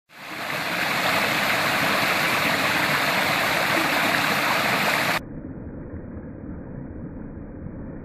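Small cascade of water rushing steadily over rocks, fading in over the first second. About five seconds in it abruptly turns quieter and dull, a low muffled rush, as the recording is slowed down for slow motion.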